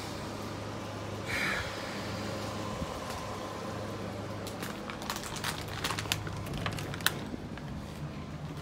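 Steady low hum in the room, with a short rustle about a second and a half in and a run of sharp clicks and taps in the middle, from the phone being handled and moved around.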